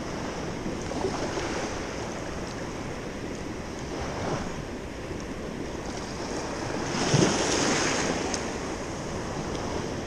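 Small sea waves washing and lapping in the shallows at a sandy shore, with one wave washing in louder about seven seconds in.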